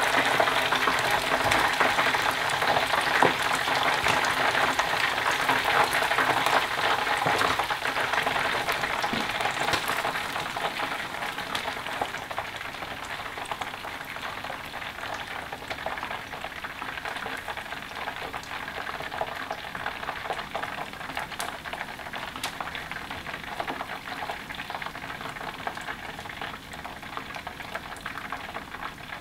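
Battered boneless chicken deep-frying in a pot of hot oil: a dense, crackling sizzle of bubbling oil. It is loud for about the first ten seconds, then softer.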